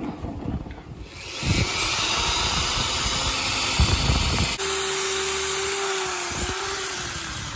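Electric drill with a masonry bit running steadily while boring into a brick wall, after a few low thumps at the start. About halfway through the sound changes abruptly to a thinner whir with a steady whine that slowly falls in pitch, and it cuts off suddenly at the end.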